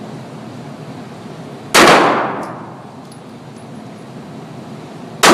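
Two handgun shots about three and a half seconds apart, each a sharp crack followed by an echoing tail that dies away over about a second; the second comes right at the end.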